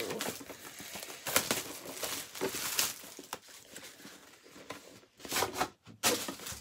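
Foil trading-card pack wrapper being crinkled and torn open by hand, in irregular sharp crackles.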